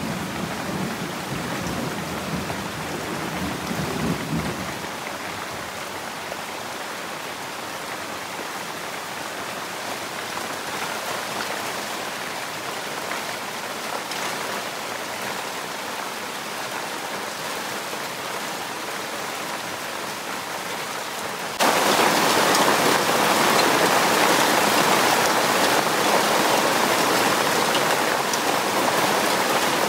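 Heavy rain falling steadily on trees and the ground, an even hiss. A low rumble sits under it for the first few seconds, and about 22 seconds in the rain abruptly becomes louder.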